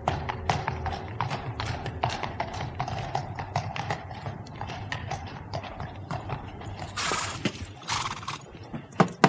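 Horse's hooves clip-clopping at a steady trot on a hard street, with the low rumble of a horse-drawn carriage's wheels. There are two short hissing bursts about seven and eight seconds in, and a few louder knocks near the end.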